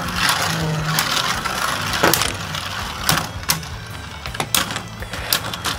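Two Hasbro Beyblade Burst spinning tops, Shelter Regulus R3 and Genesis Valtryek, whirring on a plastic stadium floor and clacking sharply against each other again and again as they battle.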